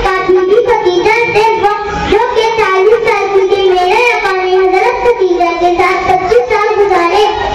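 A young girl singing solo into a microphone, one voice carrying long melodic phrases with wavering, drawn-out notes.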